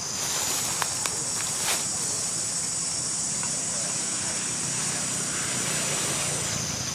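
Steady high-pitched insect drone from the forest, with a low steady hum underneath and a few short clicks about a second in.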